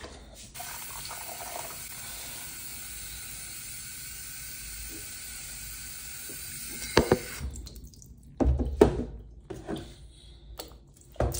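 Water running steadily, like a tap into a sink. It stops about seven and a half seconds in and is followed by a few sharp clicks and knocks.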